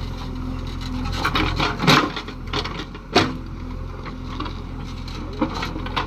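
A JCB backhoe loader's diesel engine runs steadily while its bucket scrapes and crunches through earth. The scraping comes in irregular strokes, loudest about two seconds in, with a sharp crunch just after three seconds.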